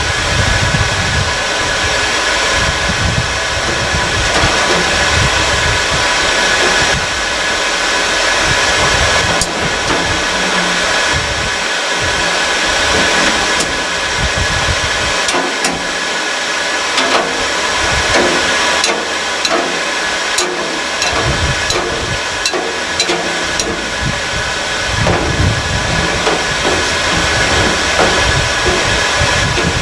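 Forge blower running steadily, a loud hissing rush of air through the fire while a blade is heated for hardening, with a scatter of sharp clicks in the middle part.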